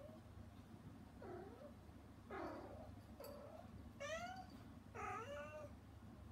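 Mother cat meowing, calling to her kittens on the other side of a closed door: a run of short meows about one a second, rising then falling in pitch, getting louder toward the end.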